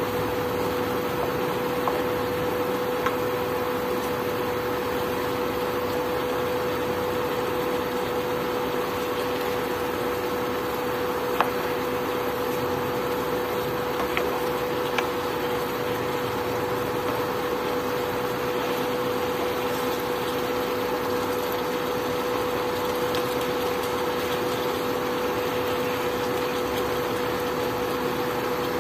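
Induction cooktop running with a steady hum and one constant tone, with the even hiss of chicken curry cooking in the frying pan. A few light taps of a wooden spatula on the pan.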